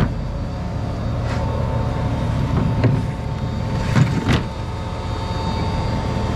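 A tractor engine running steadily, with a faint steady whine above it and several sharp knocks and clicks from handling the planter.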